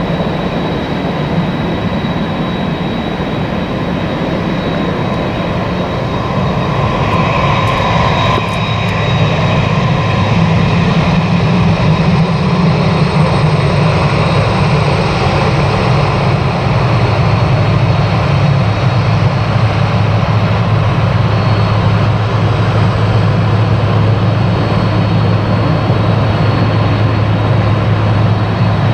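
Boeing 767 jet engines running, a steady drone that grows louder about eight to ten seconds in and then holds.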